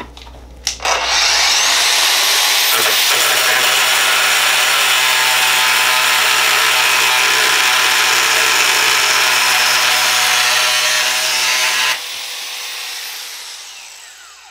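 Festool AGC 18-125 18-volt cordless angle grinder with a cutoff wheel, switched on about a second in and spinning up with a rising whine, then cutting through threaded rod with a loud, steady grinding. Near the end the cut finishes and the grinder runs free, then winds down with a falling whine.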